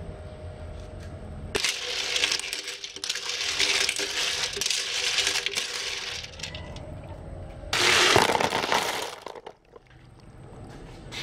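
Cockle shells clattering and clinking against each other and a metal pot as they are stirred in water with a utensil. A long spell of clattering starts about a second and a half in, and a shorter, louder one comes near the end.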